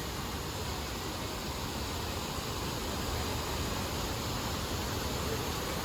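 Steady rushing of a waterfall: an even, unbroken hiss.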